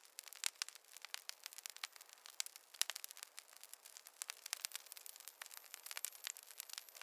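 Wood fire crackling: rapid, irregular snaps and pops over a faint hiss.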